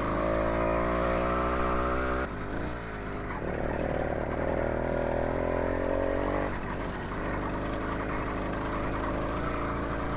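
80cc two-stroke motorized-bicycle engine running under throttle while riding. It holds a steady high note, drops abruptly about two seconds in, climbs back up and holds again, then eases off to a lower, quieter note past the middle.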